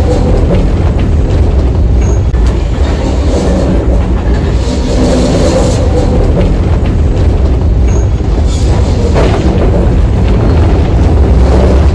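Old open electric tramcar of the Sintra tramway running along its track: a steady, loud rumble and rattle of the wheels on the rails, with faint brief squeals.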